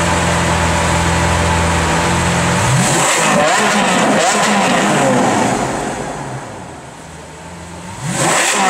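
Lamborghini Aventador LP700-4's V12 running steadily, then revved hard about two and a half seconds in, its pitch bouncing up and down against the rev limiter. The revs fall away and it is revved again near the end, in an enclosed parking garage.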